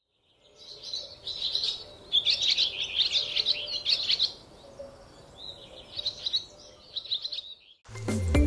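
Small birds chirping in quick runs of high notes, two long stretches with a short lull between. Music with a beat starts near the end.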